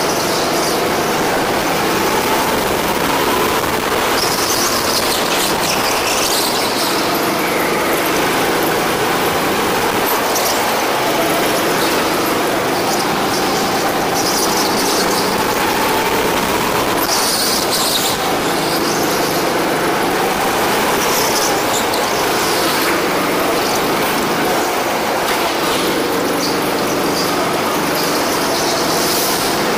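Go-kart engine running, its pitch rising and falling again and again as the kart speeds up and slows for corners. Tyres squeal briefly several times.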